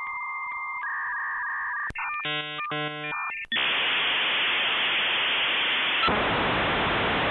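Dial-up modem handshake: steady beeping tones, then a rapid warbling, switching pattern, then from about halfway in a loud, steady hiss of data noise that shifts slightly near the end.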